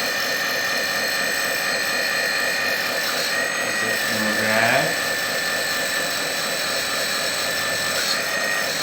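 Battery-powered hydraulic pump of a 1/14 scale RC bulldozer running steadily with a high whine. Its note shifts briefly a few times as the control valves are worked and the cylinders take load.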